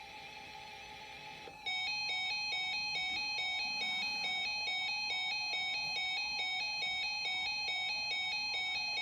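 Weather alert radio's warning alarm, announcing an incoming severe thunderstorm warning: a faint tone at first, then from about two seconds in a loud electronic alarm of rapidly alternating high beeps, repeating steadily.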